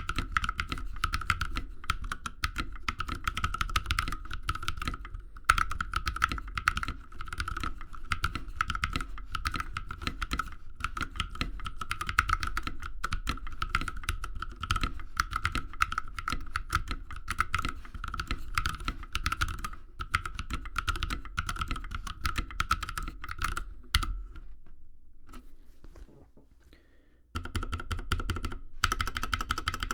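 Typing on a 65% custom mechanical keyboard with lubed Holy Panda tactile switches, an aluminium low-profile case, a brass plate and PBT keycaps: a steady, dense run of keystrokes. About 24 seconds in the typing fades away almost to silence, then starts again about three seconds later.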